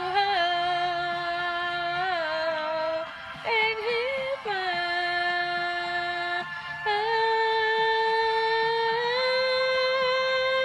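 A woman singing long, wordless held notes with vibrato, with short gaps and a quick run of notes in the middle, ending on one long sustained note that steps up slightly near the end.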